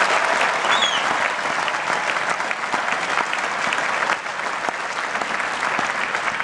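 Large audience applauding steadily, the clapping easing a little about four seconds in.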